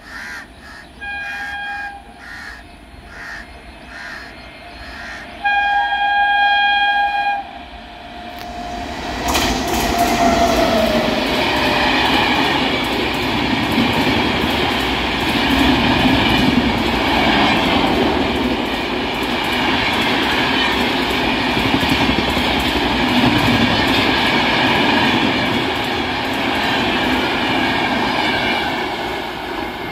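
Indian Railways express train sounding its horn twice, a short blast and then a longer one, as it approaches. From about nine seconds in it passes at speed with a loud steady rumble of wheels on rail and rapid clickety-clack over the rail joints.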